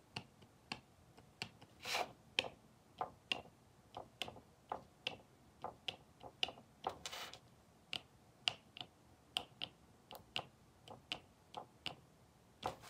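Gel pen tip tapping down on thin black cardboard as white dots are dabbed one by one: light, faint clicks about three times a second, with a short scrape of the hand on the card now and then.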